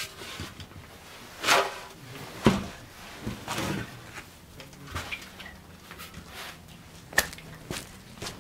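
Chopped green fodder being scooped by hand into a large steel tub, which is then handled: irregular knocks, clatters and rustling scrapes, with sharp knocks a second or so in, about two and a half seconds in and about seven seconds in.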